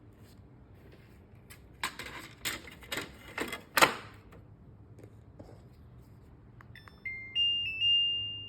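Five short scuffing knocks, then an appliance's electronic start-up chime: a few stepped beeps rising to a held tone, typical of the LG Aerotower air purifier fan being switched on.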